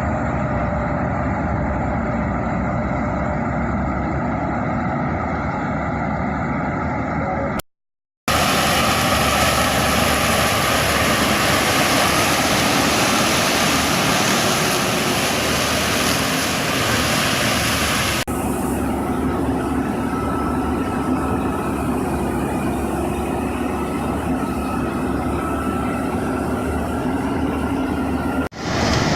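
A 4YZ self-propelled corn harvester's engine and machinery running steadily at working speed. The sound cuts out for under a second about eight seconds in and changes abruptly twice more as one recording gives way to another.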